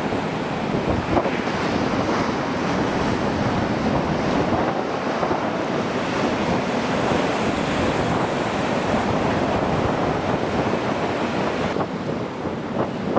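Heavy storm surf rushing and breaking, with strong wind buffeting the microphone. The high hiss falls away near the end.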